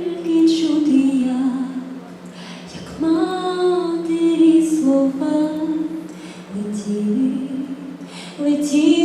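Female voice singing a slow melody in long phrases, with a steady low tone underneath.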